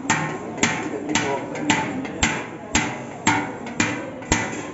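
Coppersmith's hand hammer striking copper in steady blows, about two a second, nine in all, each with a short metallic ring.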